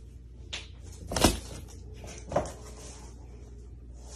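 Three short knocks, the loudest about a second in, over a faint steady low hum.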